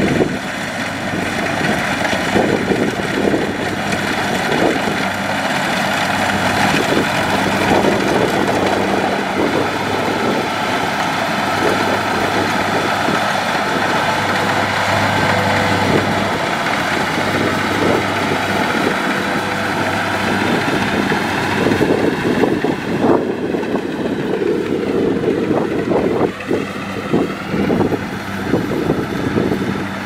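Kubota DC70 rice combine harvester's diesel engine running steadily under load while it cuts and threshes rice, with the clatter and rush of the header and threshing machinery over a steady low engine note.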